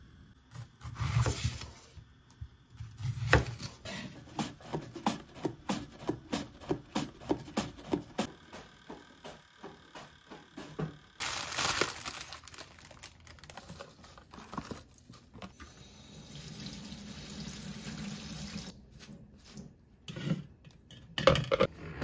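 Kitchen handling sounds around running tap water: a run of light, evenly spaced clicks, the rustle of a plastic bag of salad leaves tipped into a salad spinner, and a stretch of steady running water. A few sharp knocks come near the end as the spinner lid goes on.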